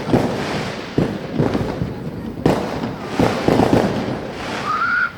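Fireworks going off: a run of sharp bangs, about one every second or less, over steady crackling.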